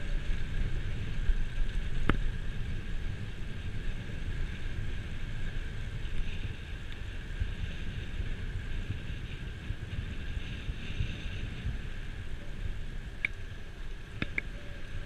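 Wind buffeting the microphone of an action camera on a moving bicycle, with a steady low rumble from riding on the asphalt road. A sharp click about two seconds in and a few more near the end.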